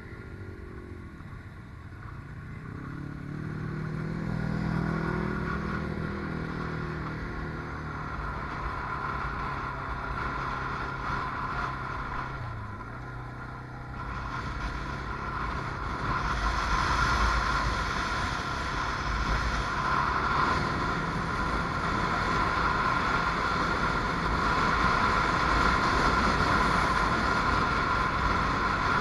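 Can-Am Outlander Max ATV engine revving up and then running hard under load on sand, with a steady whine. Wind and driving noise grow louder about halfway through as it climbs a dune.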